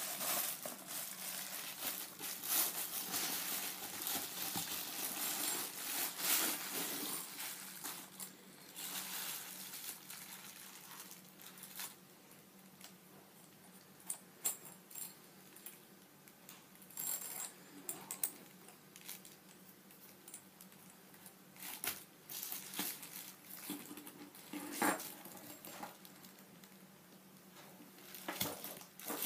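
Plastic packaging and bubble wrap rustling and crinkling for about the first twelve seconds. After that come sparser light clicks and clinks as the braided metal shower hose and its brass fittings are handled.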